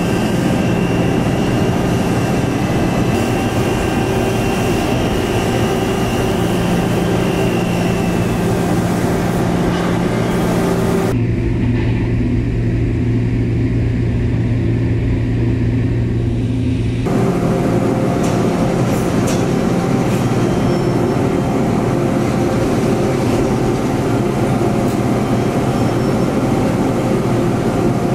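Mazak multi-tasking CNC machine cutting metal: a steady spindle and machining hum with fixed low tones. A faint high whine runs through the first part. The sound changes abruptly twice, about a third of the way in and again a little past halfway, as one cutting operation gives way to the next.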